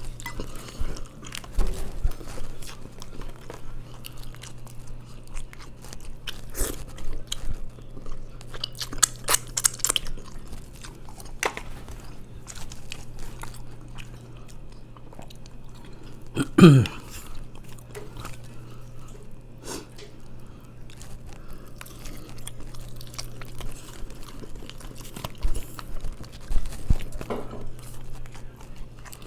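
Close-up eating sounds of a person chewing and biting mussels and chicken, with irregular clicks and taps. A little past the middle comes one short, loud, low sound falling in pitch.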